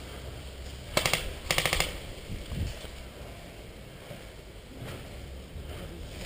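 Airsoft rifle firing two short full-auto bursts of rapid clicking shots, about half a second apart, a second or so in.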